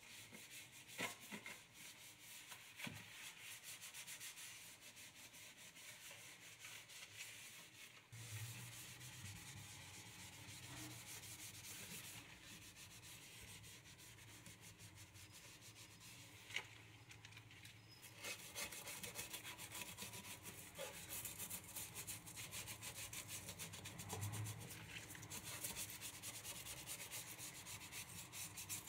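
Sponge scrubbing a stainless steel kitchen sink: a steady rubbing with a few light knocks. About two-thirds of the way in the strokes grow quicker and louder, ending with a small brush scrubbing the metal drain strainer.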